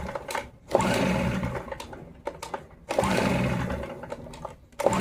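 Stihl BR 380 backpack blower's two-stroke engine being pull-started off choke: about two loud bursts of cranking and brief sputtering, each fading out, as it tries to catch but does not start. It sounds like it's about to start, yet it's not getting there.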